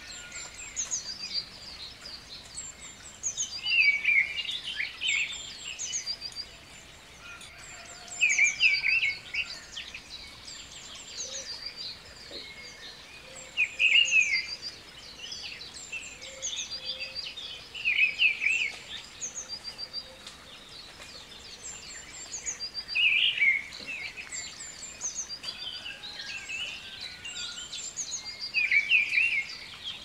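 Birdsong: birds chirping, one loud short warbled phrase coming back about every four to five seconds, with higher twitters between, over a faint steady hiss.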